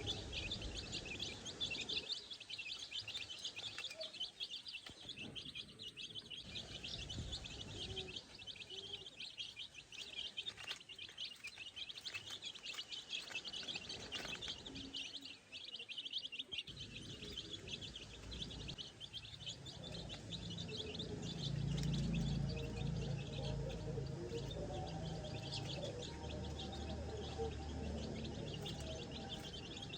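Baby chicks peeping: a dense, continuous chatter of many quick high chirps. A low rumble rises in the second half and is loudest a little past the middle.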